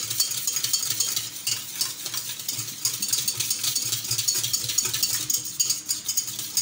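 Wire whisk beating a yogurt marinade in a stainless steel bowl: rapid, continuous scraping and clicking of the wires against the metal.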